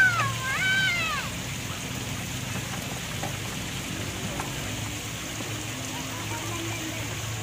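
A small child's high-pitched squealing cry, two rising-and-falling calls in the first second, then a steady background hiss.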